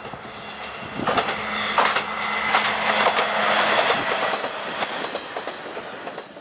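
Kanto Railway KiHa 0 series diesel railcar passing close by. Its wheels clack over the rail joints and a steady low hum runs under them. The sound swells to a peak about a second in and fades near the end as the train moves away.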